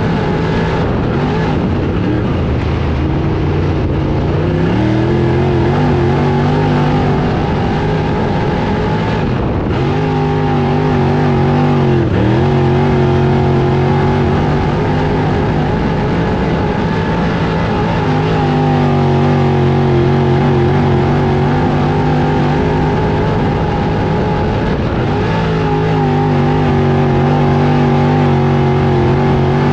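Dirt late model race car's V8 engine heard from inside the cockpit while lapping a dirt oval. The engine note climbs and holds under throttle, dips sharply as the driver lifts, and swells again several times.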